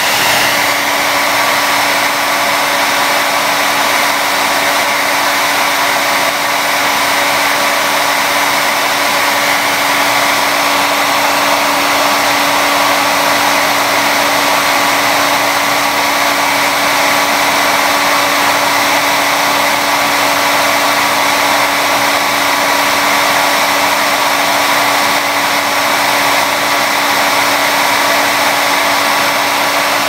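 Hair blow dryer running steadily on a continuous loud rush of air, with a steady motor hum underneath.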